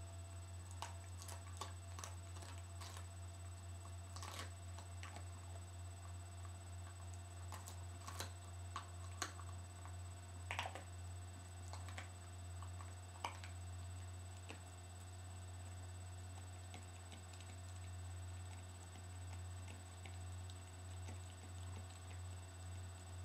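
Dog gnawing a veal breast bone: scattered sharp clicks and cracks of teeth on bone, thinning out after about 13 seconds, over a steady low hum.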